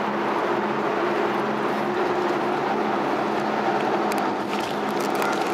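Steady mechanical drone with a constant low hum, like a running motor, and a few faint clicks near the end.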